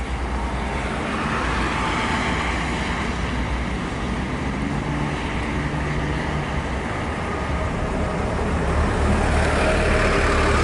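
Steady traffic noise from buses and trucks on a toll road: a low engine rumble with tyre noise, swelling a little near the end.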